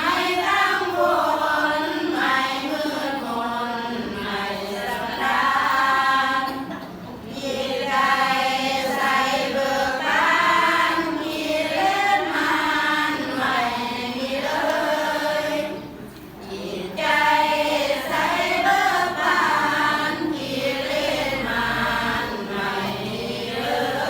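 A group of voices chanting together in unison, in the manner of Buddhist temple chanting, with short pauses for breath about 7 and 16 seconds in.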